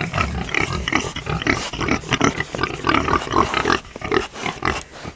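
Several butcher hogs grunting in quick, overlapping bursts. The sound starts suddenly and thins a little near the end.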